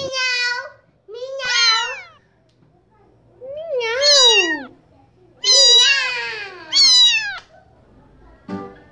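Domestic cat meowing five times, each meow a drawn-out call that bends in pitch, with short pauses between them.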